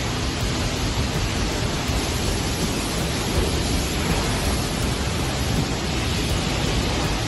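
Self-serve car wash spray wand running on its pre-soak setting, a steady hiss of water jetting onto a car's body panels.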